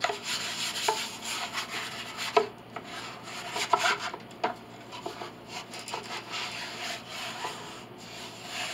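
A wooden block rubbed and scraped in short, uneven strokes across the wooden pinblock of a grand piano, with several sharp wood-on-wood knocks, the loudest about two and a half and four seconds in. The work is levelling the pinblock's surface, taking down high spots.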